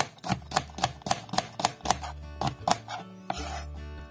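Kitchen knife chopping an onion on a plastic cutting board, about four quick strokes a second, stopping about three seconds in, with background music.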